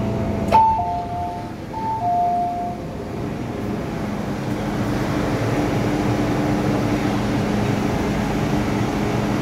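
Inside an MTR M-Train car at a station stop: a click, then a two-tone electronic chime sounding twice, high then low, over the train's steady electrical hum.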